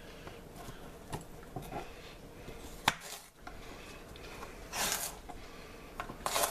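Small knife cutting a celery stalk on a plastic cutting board: a few sharp taps, the loudest about three seconds in, and short crisp rasps near the end as the stalk is cut and split.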